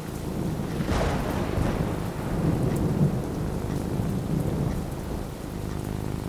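Thunder rolling over steady rain: a crack about a second in, then a low rumble that fades near the end, with rain falling throughout.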